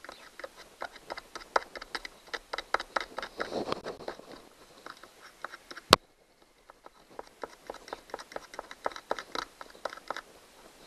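Small screwdriver tip scraping and picking carbon deposits off the brush holder of an outboard electric starter motor, a quick run of short scratchy clicks, cleaning away carbon build-up from the brushes. One sharp click about six seconds in, then a brief pause before the scraping picks up again.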